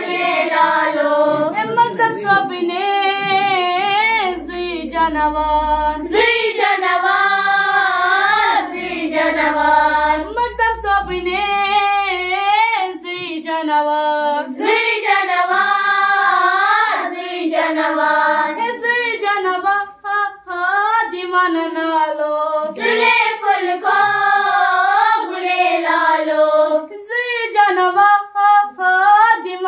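A group of schoolgirls singing a song together into a microphone, unaccompanied, the melody carried in phrases of a few seconds each.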